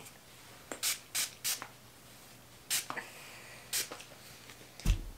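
Hands running through long hair, making several short rustling swishes, with a dull thump near the end.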